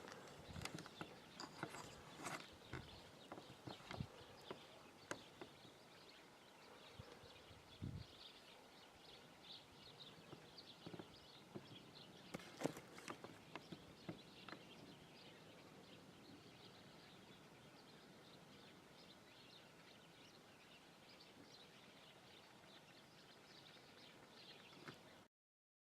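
Faint outdoor ambience with scattered soft clicks and knocks through roughly the first fifteen seconds, then only a faint steady hiss; the sound cuts off abruptly just before the end.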